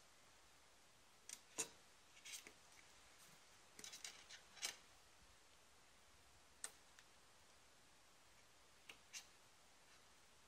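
Small sharp metal clicks and taps from long-nose pliers working a small pin into the hole of a billet aluminium dipstick handle. The clicks are scattered, with a quick cluster about four seconds in and a few single ones after.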